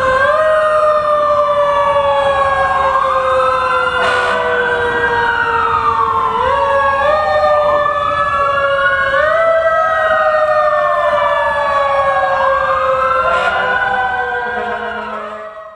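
Several fire-truck sirens wailing at once, their rising and falling tones overlapping, with one low tone sliding slowly downward. The sound fades out near the end.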